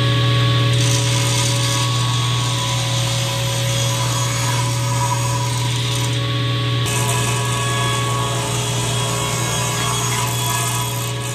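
Table saw running steadily, its blade cutting 45-degree miters in wooden picture-frame pieces.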